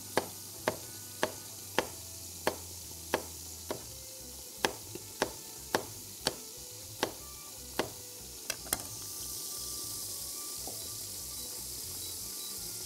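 Chef's knife chopping green hot pepper on a wooden cutting board: about fifteen sharp chops, roughly two a second, stopping about nine seconds in. After that, a steady sizzling hiss from food frying in a lidded pan.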